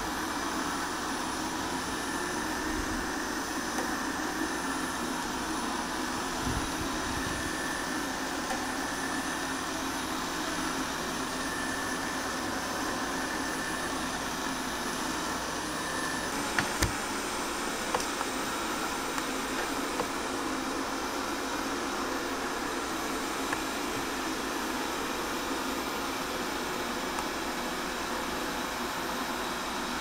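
Xiaomi Mi Robot Vacuum Mop Pro robot vacuum running steadily as it drives across the floor. A high whine in its sound drops away about halfway through, and a few light clicks follow.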